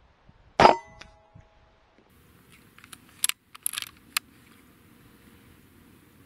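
A single shot from a Daystate Delta Wolf .177 air rifle about half a second in, a sharp crack with a brief metallic ring. A couple of seconds later comes a quick run of sharp metallic clicks from the rifle's action being worked to reload.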